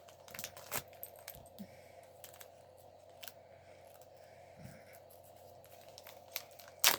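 Small plastic packaging being handled and torn open, with scattered faint clicks and taps. A sharper, louder knock comes at the very end.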